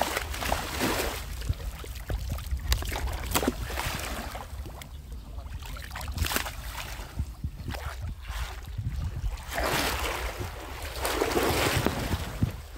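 Pond water sloshing and splashing in uneven surges as people wade through it, with wind rumbling on the microphone.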